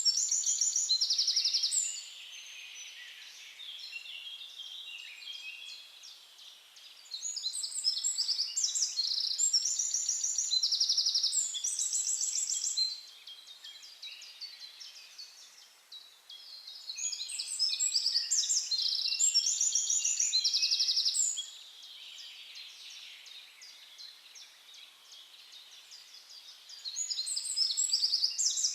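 A songbird singing loud bouts of quick, high, rapidly repeated notes and trills, each lasting several seconds, about every ten seconds, with fainter chirping between the bouts.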